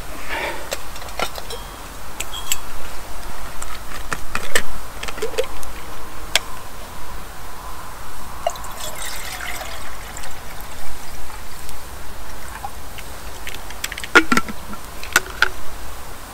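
Coffee poured and a camp cup handled, with scattered clinks and knocks.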